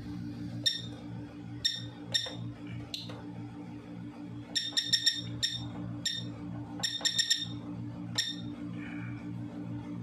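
Short electronic keypad beeps from an addressable fire alarm control panel as its buttons are pressed to move through the menus, some single and some in quick runs of three to five, over a steady low hum.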